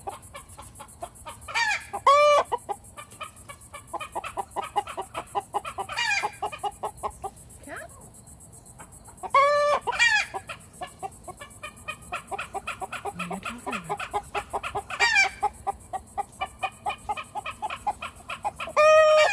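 Chickens clucking in a fast, continuous run of short notes, with loud calls breaking in every few seconds, some in pairs.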